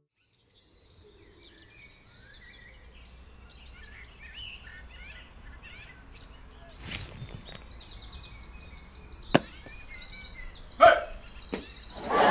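Outdoor street ambience with small birds chirping and trilling, starting about a second in, with a low steady rumble underneath and a few sharp knocks in the second half.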